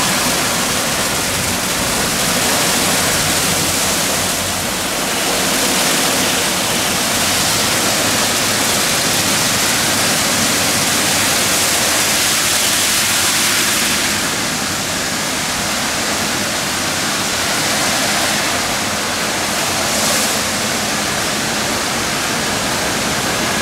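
Ceccato Hydrus Tech rollover car wash gantry at work, its large spinning wet brushes scrubbing a van under water spray: a loud, steady, dense hiss with a faint machine hum underneath. The hiss thins a little about two-thirds of the way through as the gantry moves back along the van.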